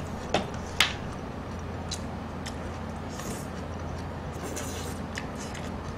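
Two people eating soup with chopsticks close to the microphone: soft chewing and slurping, with two sharp utensil clicks in the first second. A steady low hum runs underneath.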